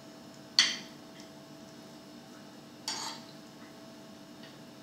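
Two sharp clinks of a metal spoon against a china plate, about two seconds apart, the first the louder.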